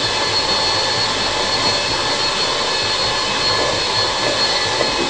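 Handheld electric mixer running steadily at speed, its beaters whisking egg yolks in a stainless steel bowl: a constant motor whine.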